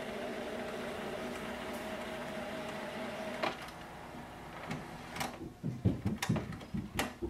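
Canon MAXIFY GX3020 printer's mechanism running with a steady hum while it processes a settings change, stopping with a click about three and a half seconds in. A few sharp clicks and soft knocks follow near the end.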